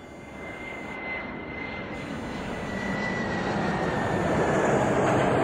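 Jet airliner engines running on a runway, the roar growing steadily louder, with a high whine that slowly falls in pitch.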